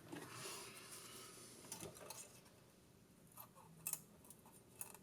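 Faint scraping and a few light metallic clicks of hand tools working at the valve rockers while the valve clearance is checked, with a sharper click about four seconds in.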